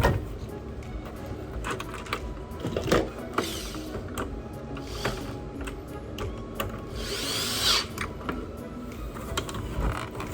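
Scattered light clicks and scrapes of small tools during console repair work, with a longer scraping burst about seven seconds in, over faint background music.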